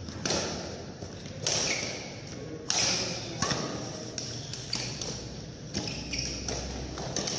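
Badminton rackets striking a shuttlecock in a rally, sharp hits about once a second, each ringing briefly in a large hall.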